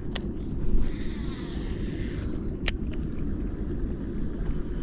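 A baitcasting reel during a cast: a click, then the spool whirring for about a second and a half as line pays out, then a sharp click as the reel is engaged again. Low wind rumble on the microphone throughout.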